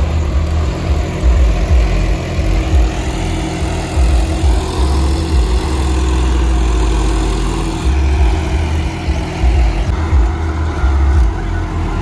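John Deere 5075E tractor's three-cylinder diesel engine running steadily under load, pulling a two-bottom plough through the soil, with wind buffeting the microphone.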